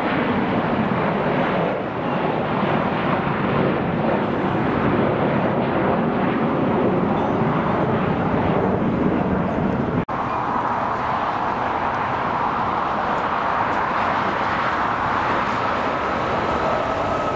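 Jet airliner engine noise, a loud, steady rush. It cuts off abruptly about ten seconds in and resumes with a high whine rising slightly in pitch.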